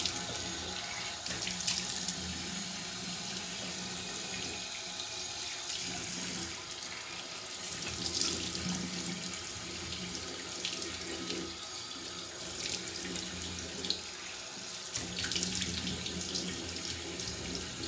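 Tap water running steadily into a bathroom sink while a face is rinsed under it, with irregular splashes as handfuls of water are brought to the face to wash off foaming cleanser.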